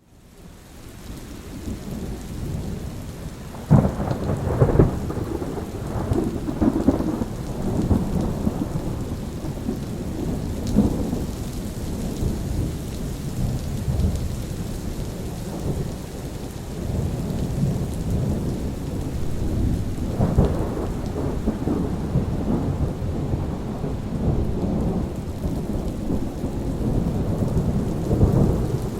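Thunderstorm: rain falling with rolling thunder. The sound fades in from near silence at the start, then a loud thunder crack comes about four seconds in and another roll swells around twenty seconds in.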